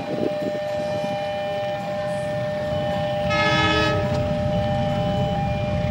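Indonesian train running fast with a low rumble and a steady high whine, and one short blast of its horn about three and a half seconds in.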